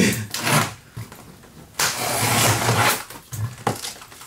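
A key dragged along the packing-tape seam of a cardboard box, slitting the tape: a short scratchy rip at the start, then a longer tearing rasp of about a second, followed by a couple of light knocks on the cardboard.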